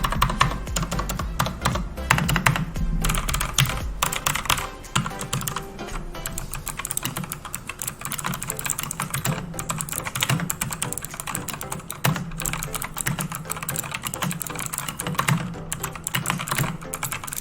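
Continuous fast typing on an optical mechanical keyboard (Rezoom RK201 with Gsen optical switches), a dense run of clicky keystrokes that sound much like blue switches.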